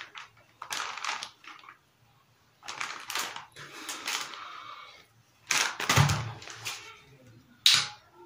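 Crinkling and rustling as a plastic bottle of micellar cleansing water and a pack of cotton pads are handled, in several short bursts, with a knock about six seconds in and a sharp click near the end.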